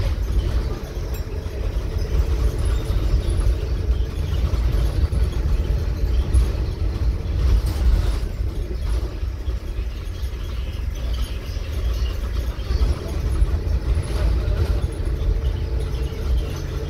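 Cabin sound inside an Alexander Dennis Enviro 300 single-deck bus on a Scania chassis while it is under way: a steady low engine and road rumble, with a brief louder knock or rattle about eight seconds in.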